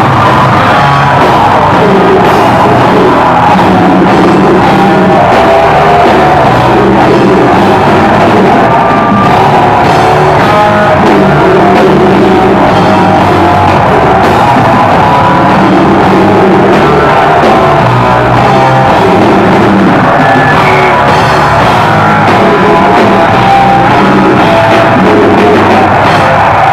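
Live rock band playing loud: electric guitars and drum kit, with a singer's voice over them.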